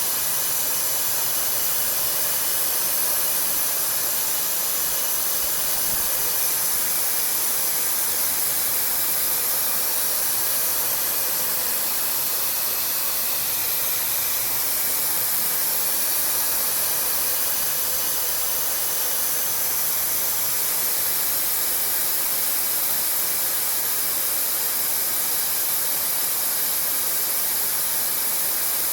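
CNC machine running while machining a Ford 6.4L diesel piston: a steady, loud hiss with faint, constant whining tones and no change in pace.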